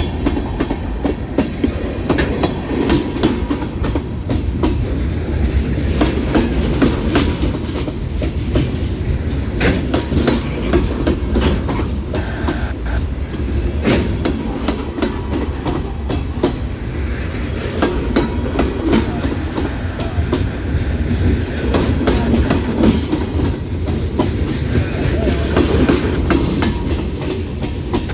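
Freight cars of a passing train rolling by, a steady rumble of steel wheels on rail with rattling cars and irregular clicks and clacks over the rail joints.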